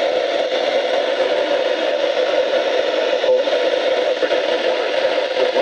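Steady static hiss from a NOAA weather radio receiver, as loud as the broadcast and burying the announcement: the signal has faded.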